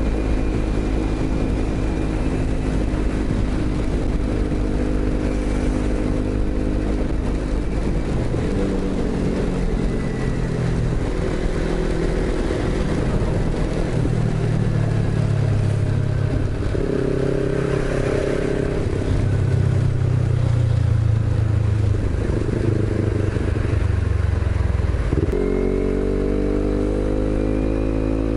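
Motorcycle engine heard from the rider's seat while riding on a wet road, its note rising and falling with the throttle. Near the end it climbs steadily under acceleration. A steady hiss of wind and wet tyres runs under it.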